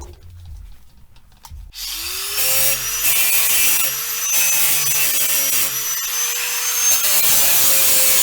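Electric angle grinder spinning up about two seconds in, then grinding the steel mower deck with a steady motor tone under a loud grinding hiss. It is taking paint and rust off down to bare metal to make a clean ground spot for welding.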